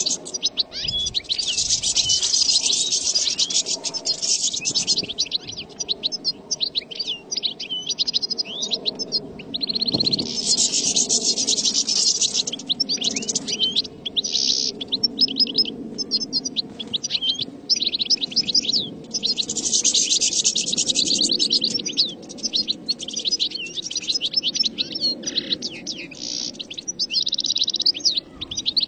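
European goldfinch song: fast, continuous twittering and trilling phrases, broken only by brief pauses.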